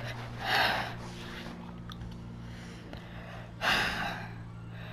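A person breathing hard from the exertion of pull-ups: two heavy breaths, about half a second in and again near the end. A steady low hum runs under them.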